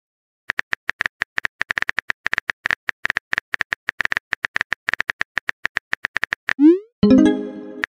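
Simulated phone keyboard clicks from a texting-story app: rapid key taps, several a second, as a message is typed. Near the end comes a short rising swoosh and then a brief pitched alert tone.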